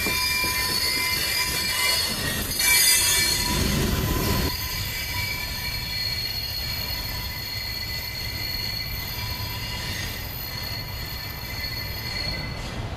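Loaded coal cars rolling by on a curve, their wheels squealing in several steady high tones over a low rumble. The rumble drops about four and a half seconds in as the end of the train moves away, and the squeal fades out near the end.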